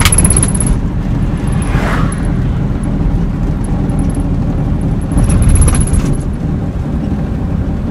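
Road noise heard inside a moving car's cabin: a steady low rumble of engine and tyres, with a few brief louder swells, the longest from about five to six seconds in.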